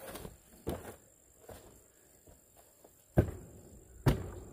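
Rubber boots stepping on a wooden plank ramp, a few soft footfalls, then two sharp knocks on the wooden trailer floor about three and four seconds in.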